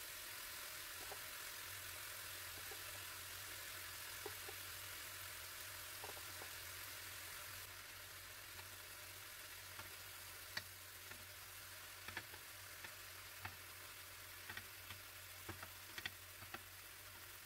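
Marinated prawns sizzling faintly in a grill pan. In the second half, a scattering of light clicks and taps as metal tongs turn the prawns against the pan.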